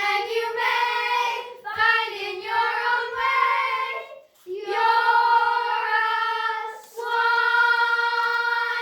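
Children's voices singing together in chorus: sung phrases with long held notes and brief breaks between them.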